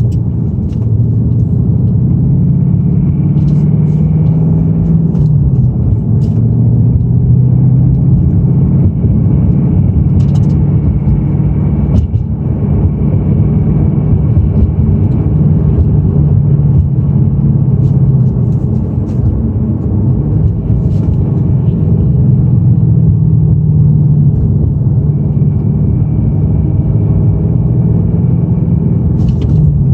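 2018 Ford Mustang GT's 5.0 L Coyote V8 running steadily, its pitch shifting a few times as engine speed changes. It carries an engine rattle that the owner suspects is piston slap, though the dealer called it normal.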